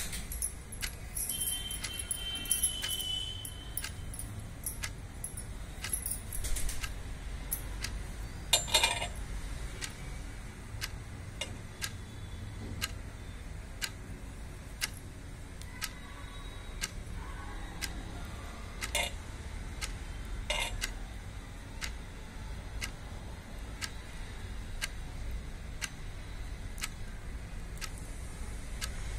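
Steady regular ticking, about three ticks every two seconds, over a low hum, with a few short rustling bursts and some light clatter in the first few seconds.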